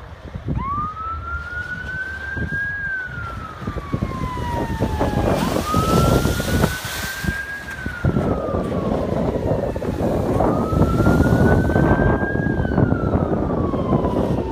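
A siren wailing, each cycle rising quickly then falling slowly, three times about five seconds apart, over heavy wind buffeting the microphone and the rush of waves.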